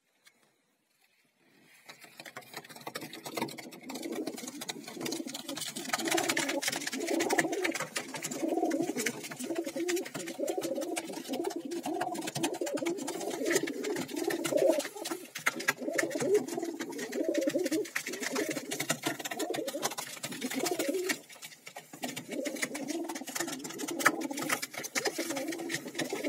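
Several fantail pigeons cooing together at close range, their low, rolling coos overlapping continuously from about two seconds in, with a short lull near the end. Scattered light taps are mixed in.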